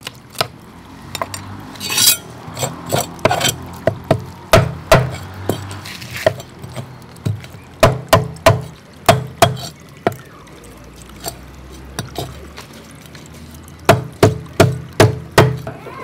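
A kitchen knife scraping the scales off a whole parrot fish on a wooden chopping board: a rasping scrape about two seconds in, then runs of sharp scraping strokes and knocks on the wood at about three a second, with short pauses between the runs.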